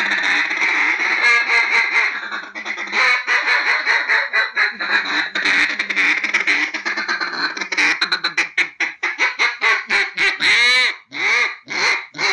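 Mallards quacking: a dense run of fast, overlapping quacks and chatter that slows about eight seconds in to separate quacks, then one longer drawn-out quack falling in pitch and three short quacks near the end.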